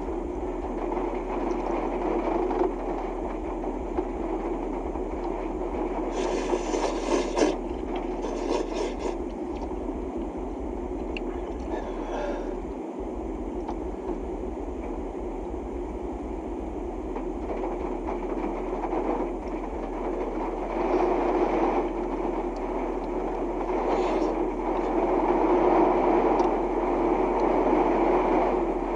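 Honda N-VAN on the move: a steady rumble of road and engine noise, rising a little near the end, with a few brief scraping rushes about six to nine seconds in.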